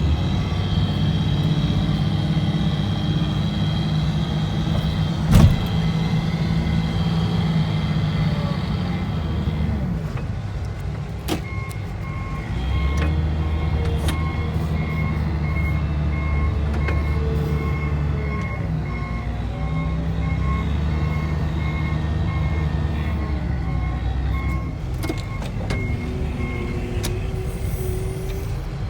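Snow-plowing machine's engine running, its pitch shifting with load, with one sharp knock about five seconds in. About halfway through, a reversing alarm starts beeping evenly, about two beeps a second, and stops near the end.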